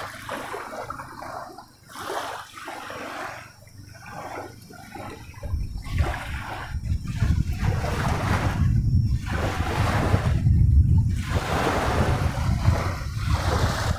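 River water trickling and splashing at the bank in irregular surges. About halfway through a low rumble joins in and the sound grows louder.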